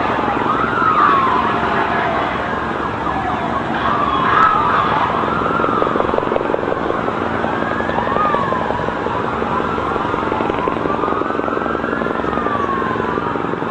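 Several emergency-vehicle sirens wailing at once over a steady background rumble, their pitches rising and falling in overlapping arcs, one long slow sweep near the end.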